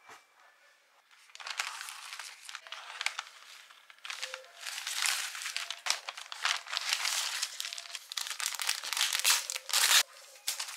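Kraft-paper parcel wrapping crinkling and rustling as it is handled and opened, in uneven bursts that grow louder toward the end and stop abruptly about ten seconds in.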